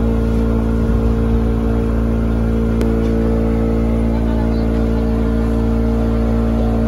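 Motor tour boat's engine running steadily at cruising speed while under way, a constant droning hum.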